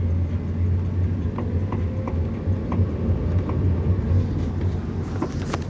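A car running with a steady low rumble, punctuated by a series of light pops spaced under a second apart and a sharper pop near the end: the weird popping noise this car makes every now and then while braking.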